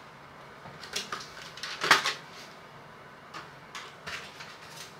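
Cardboard box packaging and trading cards being handled: scattered light clicks and rustles, with one sharper tap about two seconds in.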